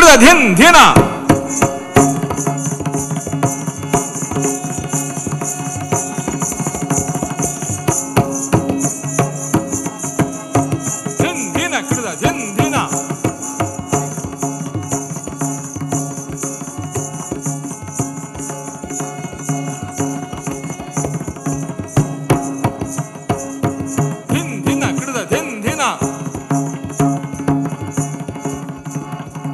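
Accompanying music for Karnataka shadow-puppet theatre: drums and hand percussion keep up a busy rhythm over a steady low drone. It is loudest in the first second or two. Pitched sliding phrases rise and fall twice, about a third and about four-fifths of the way through.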